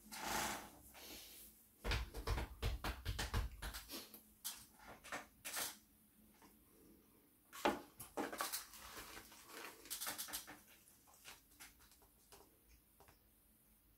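Polystyrene takeaway box being handled on a table: scattered clicks, taps and squeaks, with a run of low thumps about two to four seconds in.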